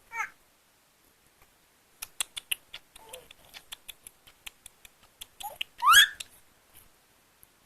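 Baby's vocal play: a run of sharp clicks with a soft little coo in the middle, then one short rising squeal about six seconds in.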